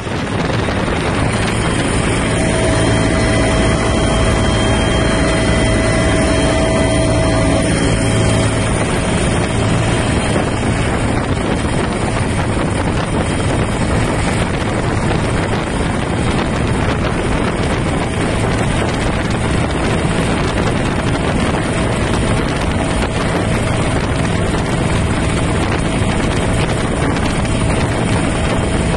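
Helicopter engine and rotor noise inside the cabin: a loud, steady drone. A faint steady whine drops away about eight seconds in.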